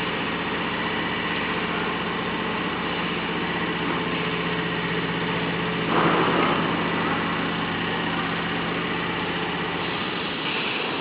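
Spiral fan guard welding machine running with a steady mechanical hum, with a brief louder rush of noise about six seconds in. The low part of the hum drops away near the end.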